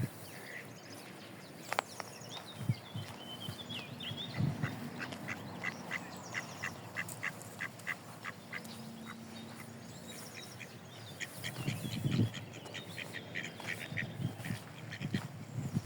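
Ducks quacking in runs of short, evenly spaced quacks, about three a second.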